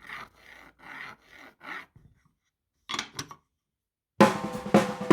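A series of quick rasping rub strokes, about two a second, then two louder strokes about three seconds in. Drum-kit music starts near the end.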